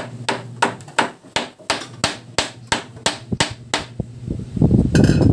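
Claw hammer driving a nail into a wooden stair handrail: about a dozen quick, even blows, roughly three a second. Near the end the blows stop and a louder jumbled rumbling noise takes over.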